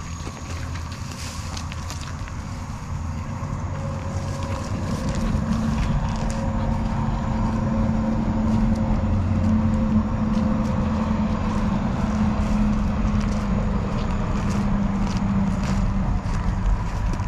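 A motor engine running with a steady hum, growing louder over the first several seconds and then holding steady.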